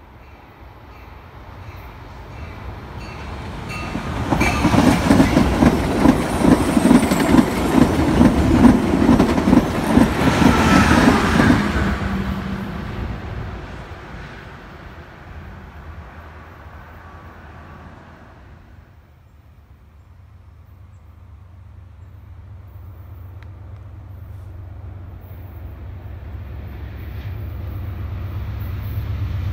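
Amtrak passenger train passing at speed. It builds up, then its wheels click over the rail joints in a fast rhythm, loudest from about four to twelve seconds in, and it fades away. Near the end the low rumble of an approaching Amtrak diesel locomotive grows steadily louder.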